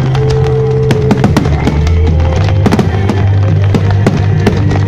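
Fireworks bursting in quick succession, many sharp bangs and crackles, over loud music with long held notes played through the display's loudspeakers.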